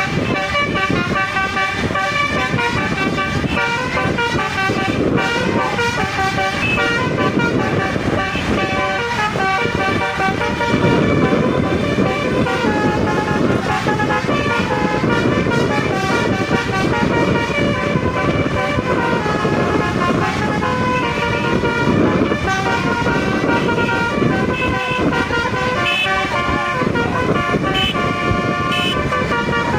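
Indonesian bus 'telolet' musical air horn playing a run of quick changing notes like a tune, over the loud rumble of the bus engine and road noise as it drives fast.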